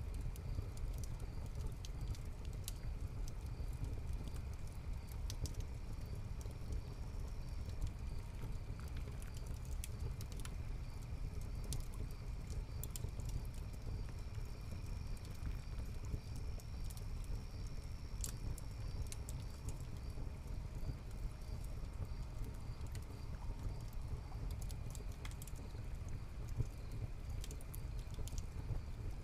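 Layered night ambience inside a watermill. A low steady rumble runs under a wood fire in the hearth crackling with scattered sharp pops, while crickets chirp in a steady high pulsing trill.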